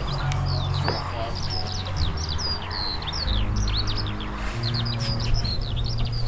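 Many small birds chirping rapidly and continuously, over background music with a low bass line.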